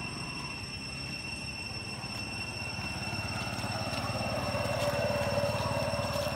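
Steady low engine-like rumble with a thin high whine over it, swelling a little louder from about four seconds in.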